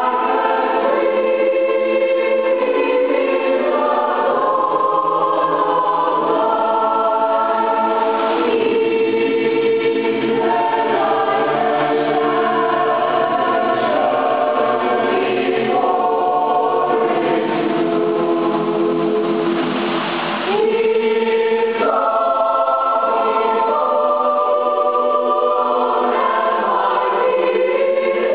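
High school choir singing in several parts, holding long chords that change every second or two. Lower voices join about eight seconds in, and there is a brief breathy break in the sound about twenty seconds in.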